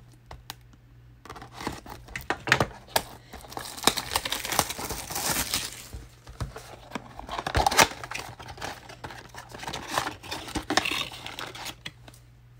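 Plastic shrink-wrap crinkling and tearing as it is cut and stripped from a cardboard Donruss basketball card box, then the box's cardboard flaps pulled open. It comes as irregular crackles and sharp clicks in several louder spells.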